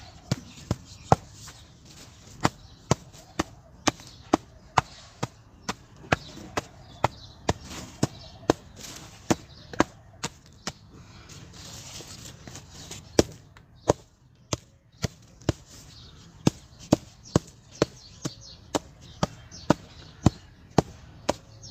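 Lumps of hard-set reused cement struck over and over, sharp knocks about two a second with a brief lull in the middle. The cement set too hard because too much water went into it.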